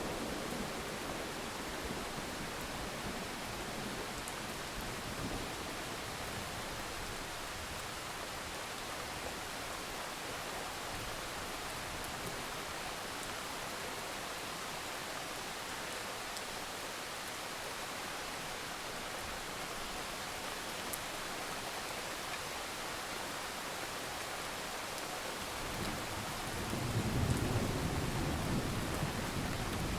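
Steady rain falling, an even hiss, with a low rumble of thunder building near the end.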